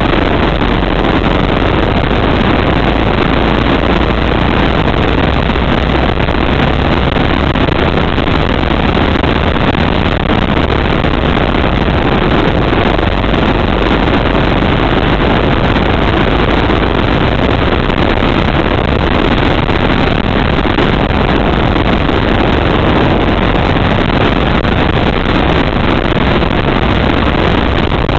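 Go-kart engine running hard at close range, heard from on board while the kart laps. The sound is loud and even throughout, with no breaks.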